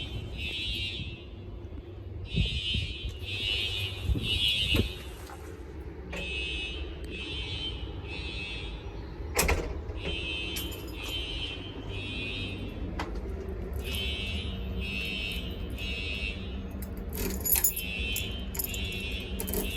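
Siemens fire alarm horns sounding the temporal-3 evacuation pattern: three short blasts, a pause, then three again, repeating. Occasional clicks and knocks, with a sharp one about nine and a half seconds in.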